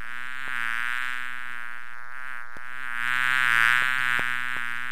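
Bee buzzing: a steady hum that wavers slightly in pitch, swells louder near the end and then cuts off suddenly.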